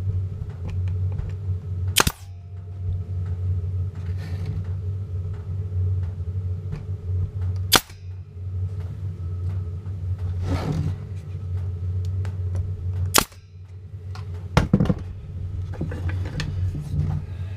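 Nail gun firing nails into a wooden beehive frame to fix the strip that holds the wax foundation: four sharp shots a few seconds apart, over a steady low hum.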